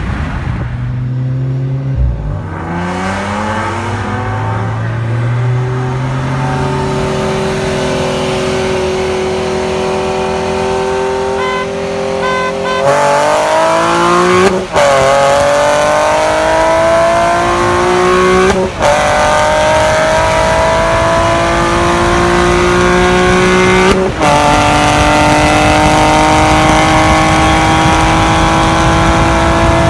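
Sports car engine at full throttle, heard from inside a car, accelerating hard through the gears. Its pitch climbs steadily, the sound gets louder a little before halfway, and it dips sharply at three quick upshifts in the second half.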